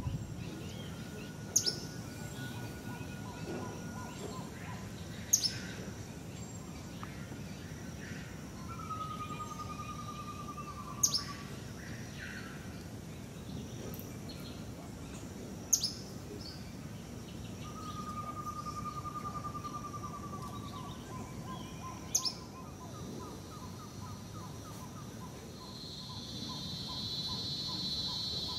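Forest birds calling. Five loud, sharp calls falling steeply in pitch come every few seconds, with two falling trills between them and a long series of soft, evenly spaced whistled toots, typical of a pygmy-owl. A high, steady buzz starts near the end.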